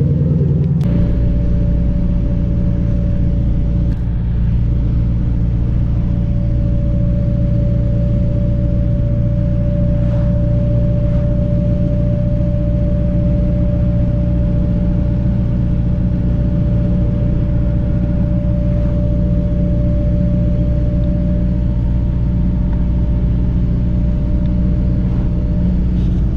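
2000 Firebird Trans Am WS6's LS1 V8 running at a steady cruise, the engine note holding even with a thin steady whine above it, after a brief change about a second in.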